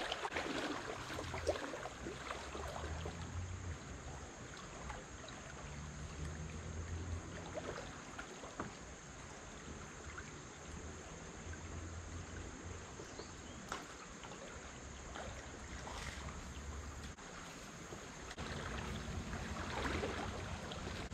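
Shallow river water running steadily over a rocky riffle, with a low, uneven wind rumble on the microphone underneath and a few faint ticks.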